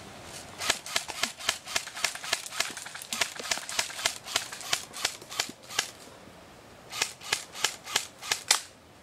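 M4-style airsoft rifle firing a quick string of single shots as sharp snaps, about three or four a second. After a short pause, a second run of shots comes near the end.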